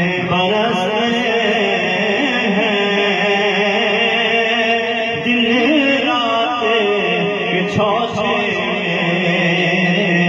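Devotional naat chanting: melodic voices held on long notes that glide up and down, without a break.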